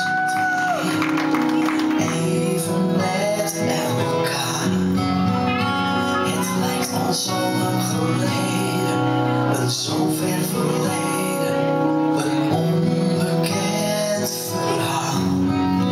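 Latin dance music with a singer, playing loud and steady.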